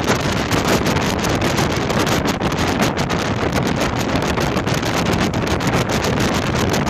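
Strong wind buffeting the microphone: a loud, steady rush of noise with constant rapid crackling gusts.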